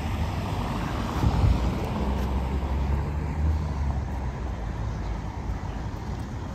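Steady low rumble of city traffic, with a vehicle engine's hum strongest in the middle.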